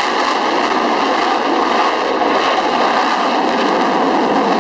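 Jet aircraft engine noise: a steady, loud rushing sound with faint steady whine tones on top.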